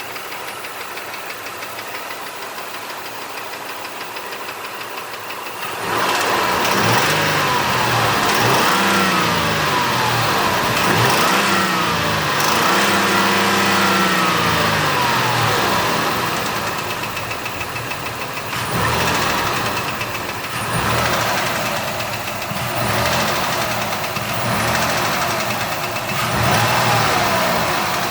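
2006 Ford Escape's 3.0 L V6 engine idling, then revved up and down repeatedly from about six seconds in. It carries a knocking noise of unknown cause.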